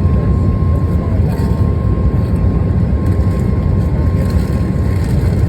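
Cabin noise of a Boeing 737 MAX climbing out after takeoff: a loud, steady low rumble of its CFM LEAP-1B engines and airflow, with a faint steady high tone.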